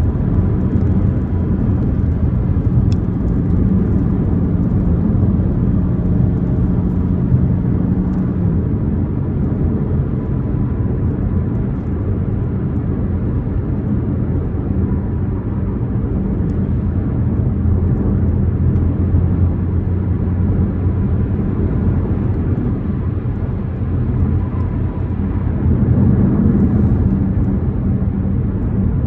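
BMW M4 Competition's twin-turbo inline-six running with a steady low drone; the engine note drops slightly about eight seconds in and rises again, a little louder, near the end.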